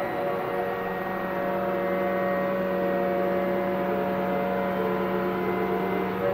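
Mobile boat crane (travel lift) running as it carries a yacht in its slings: a steady machine hum with several held tones.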